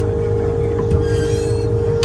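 Heavy diesel machine running steadily, a low pulsing rumble with a constant high whine over it.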